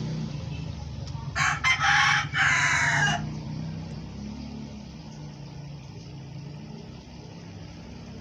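A rooster crowing once, about a second and a half in, over a low steady hum.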